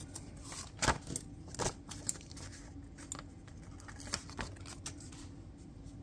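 Paper rustling and a few light clicks and taps as a small paper planner sticker is handled and laid on the page.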